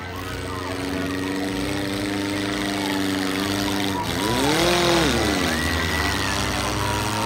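Demolition derby car engine held at high revs while its wheels spin against another car, then revving up and dropping back once about four seconds in. Crowd noise runs underneath.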